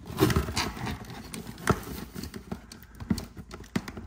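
Plastic RC toy car and its cardboard packaging being handled while a twist tie is worked loose: a run of irregular clicks and knocks.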